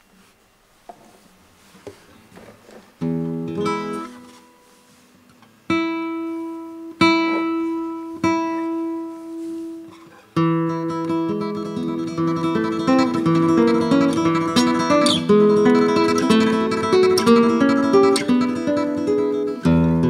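Solo acoustic guitar playing a slow waltz. After a few faint finger clicks, several spaced chords ring out and are held. About ten seconds in, the playing turns into a steady flow of plucked notes.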